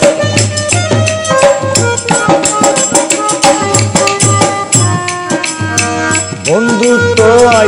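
Harmonium playing the melody of a Bengali Baul folk song in an instrumental break, over steady rhythmic hand percussion. A singing voice comes in near the end.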